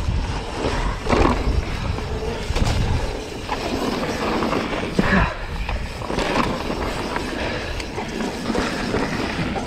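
Mountain bike ridden fast down a dry, rocky dirt trail: continuous tyre and trail noise with the chain and frame rattling over the bumps, and a few sharper knocks about a second in and around five seconds in.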